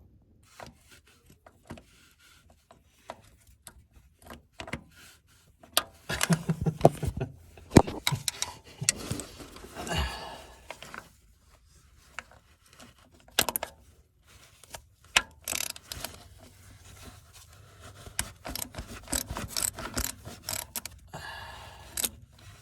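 Hand tools working on metal: irregular clicks, knocks and scraping, with the busiest and loudest clatter about six to eleven seconds in.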